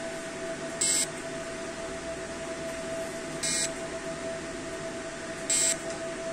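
RedFrax CO2 fractional laser beeping as it fires elliptical scan shots: three short, high beeps a couple of seconds apart, one per shot, over the machine's steady hum.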